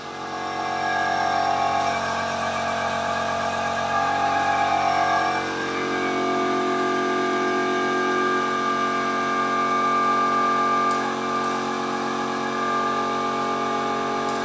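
Flash butt welding machine humming steadily as it stands powered after a weld, with some rougher noise in the first few seconds.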